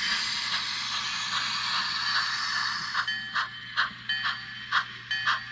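HO scale model steam locomotive's sound: a steady steam hiss for about three seconds, then regular chuffing at about two beats a second.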